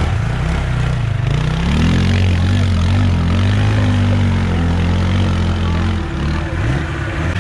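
Off-road vehicle engine running at steady low revs, a loud drone that eases a little near the end.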